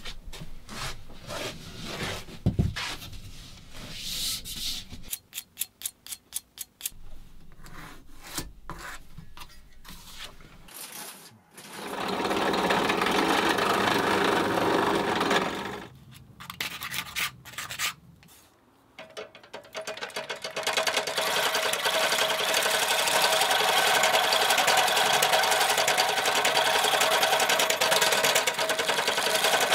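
Hand-tool workshop sounds. For the first ten seconds there are clicks and short rubbing or filing strokes. From about twelve to sixteen seconds a drill press drills into a board, and from about twenty seconds in a foot-treadle machine runs steadily with a constant hum.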